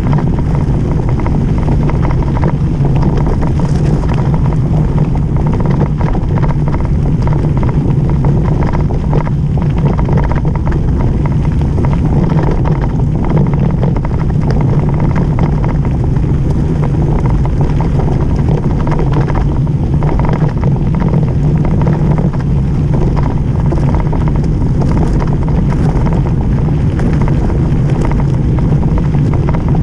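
Steady wind rush on the microphone of a camera on a mountain bike descending fast down a gravel road. Under it are tyre noise on the gravel and short rattles from the bumps.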